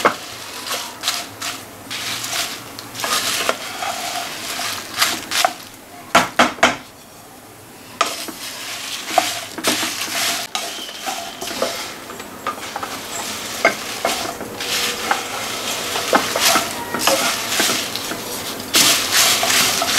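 A wooden spatula stirring and scraping dry red chillies as they roast in a little oil in a nonstick pan: repeated rustling, scraping strokes over a sizzle, with a brief lull about seven seconds in.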